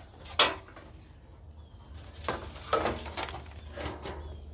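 A removed Jeep Cherokee XJ metal fender being handled and lifted off its plastic fender flare: a sharp knock about half a second in, then scattered scraping and knocking of the panels.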